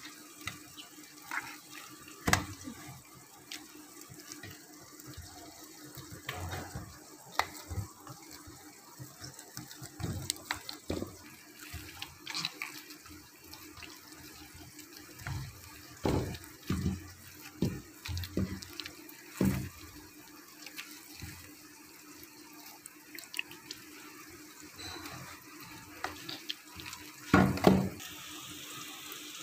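Hands kneading wet wheat-flour dough in a steel bowl: irregular wet squelches and slaps of dough against the metal, with the loudest cluster near the end.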